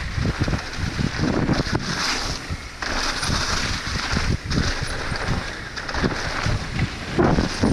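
Trek Slash full-suspension mountain bike riding fast down a dirt trail: tyres rolling over the ground and the bike rattling and knocking over bumps, with wind buffeting the action camera's microphone.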